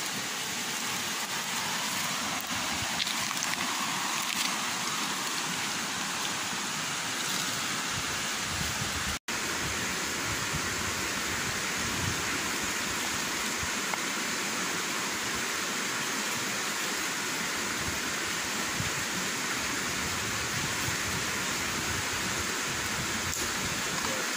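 Steady rush of fast-flowing river water, an even hiss that cuts out for an instant about nine seconds in.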